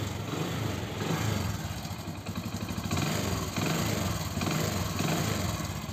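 Hero Passion Pro i3s motorcycle's single-cylinder air-cooled four-stroke engine idling steadily just after a kick start, running on its newly replaced spark plug lead.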